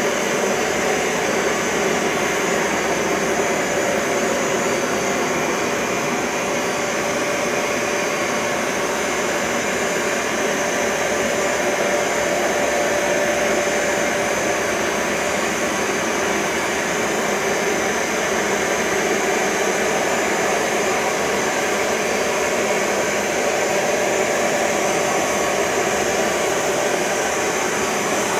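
Bissell ProHeat 2X Revolution Pet upright carpet cleaner running steadily as it cleans carpet.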